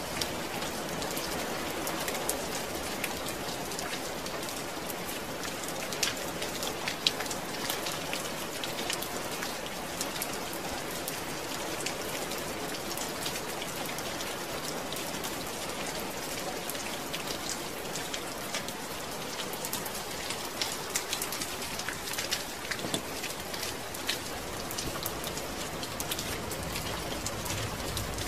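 Steady rain falling, a continuous hiss with many individual drops pattering on a surface.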